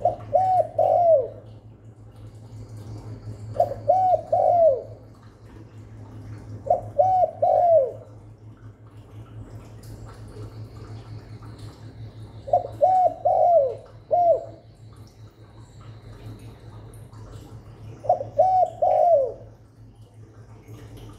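Spotted dove cooing as a decoy call: five phrases of three or four low hooting notes, each about a second long and a few seconds apart. A steady low hum runs underneath.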